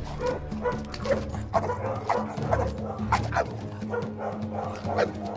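Shar Pei barking repeatedly, about two to three barks a second, over background music with a steady beat.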